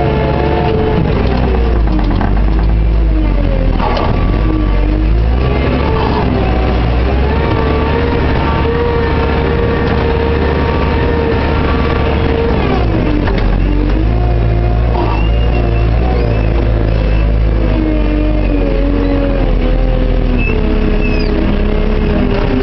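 JCB 532-120 telehandler's diesel engine heard from inside the cab, revving up and down as the machine drives and raises its loaded boom. It is held at high revs for several seconds mid-way, then drops back about 13 seconds in.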